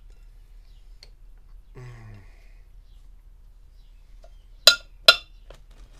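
Two sharp metallic clacks about half a second apart near the end, each with a short ring, as metal parts of a disassembled e-bike hub motor knock together. A brief low murmur of a man's voice comes about two seconds in.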